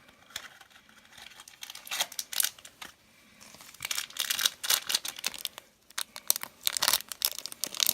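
Crinkling and tearing of a small blind-box package being opened by hand. It is sparse at first and grows denser and louder about halfway through.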